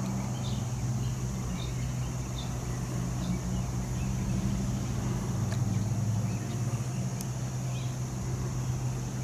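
EMD SD60E diesel locomotive idling while parked, a steady low engine hum with an even drone underneath.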